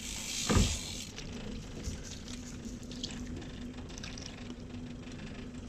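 A single thump about half a second in, then steady low noise from the boat on the water with faint water sounds, small scattered knocks and a faint steady hum.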